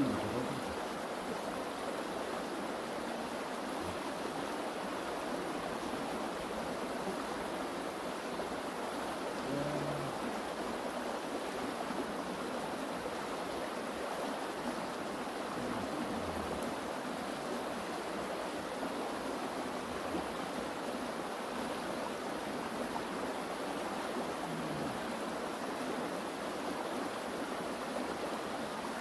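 Mountain stream running: a steady, even rush of flowing water.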